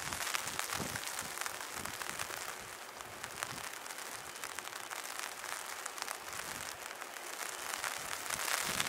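Heavy rain falling, a steady hiss made of many small drop ticks, easing slightly in the middle and growing again near the end.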